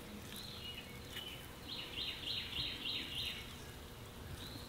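A bird calling: a few high chirps, then a quick run of about half a dozen falling chirps in the middle, over faint outdoor background noise.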